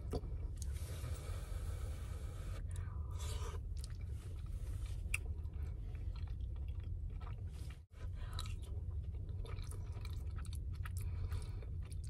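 Close-up chewing and wet mouth clicks of someone eating a soft shrimp, potato and rice dish, over a steady low hum.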